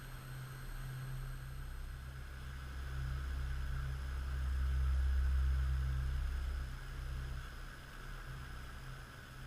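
Low rumble of typhoon wind buffeting the camera's microphone, swelling in a gust around the middle and easing off after.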